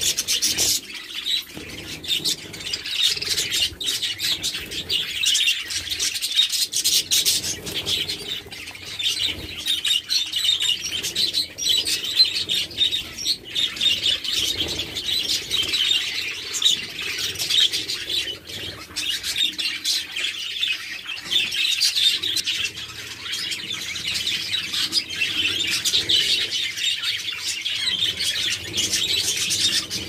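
A flock of caged budgerigars chattering and chirping continuously, many birds calling over one another in a dense warble.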